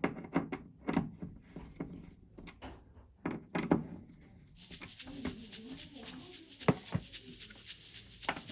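Irregular clicks and knocks in a small room, with a steady hiss setting in about halfway through.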